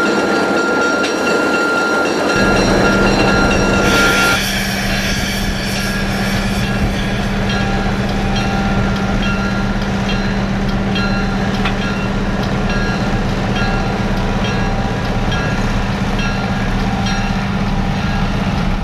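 MLW S-12 switcher's ALCO 539 diesel engine running with a steady low drone, which comes in strongly about two seconds in after cab noise. A brief hiss sounds about four seconds in.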